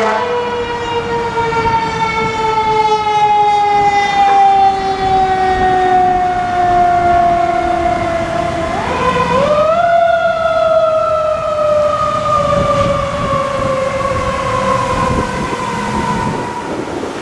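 Fire truck's mechanical siren winding down slowly in pitch, then wound back up sharply about nine seconds in and falling away again, over street traffic noise.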